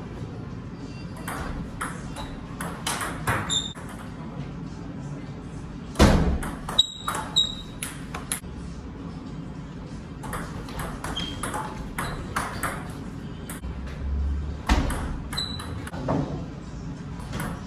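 Table tennis ball clicking back and forth off the paddles and the table in rallies: several runs of quick hits with short pauses between points, and one louder knock about six seconds in.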